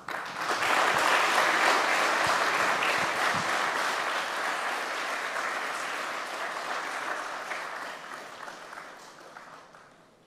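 Audience applauding. The clapping starts strongly just after the start, then gradually dies away over the last few seconds.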